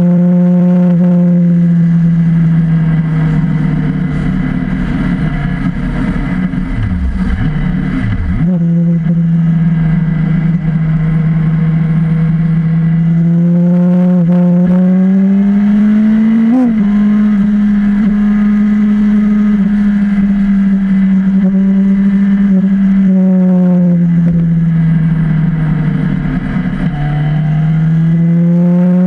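Motorcycle engine droning at highway cruise, its pitch rising and falling a little with the throttle, over a steady rush of wind and road noise.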